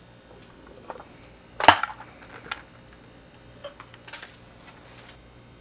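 Metal parts of a break-action gun with a homemade rebar barrel being handled: one sharp metallic clack about a second and a half in, then a few lighter clicks.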